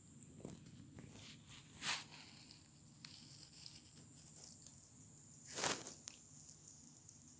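Faint rustling and brushing, with two brief, louder swishes about two seconds in and again a little past five seconds.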